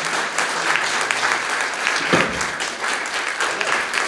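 Audience applauding: a roomful of people clapping steadily at the end of a talk.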